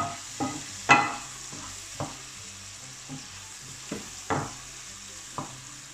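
Diced chicken sizzling in hot oil in a frying pan while a wooden spoon stirs it, with several knocks and scrapes of the spoon against the pan, the loudest about a second in.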